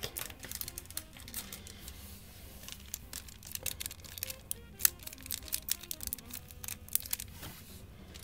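Foil wrapper of a 1991 Upper Deck basketball card pack crinkling and crackling as it is handled and torn open, with many sharp crackles and the loudest a little before the middle. Background music plays under it.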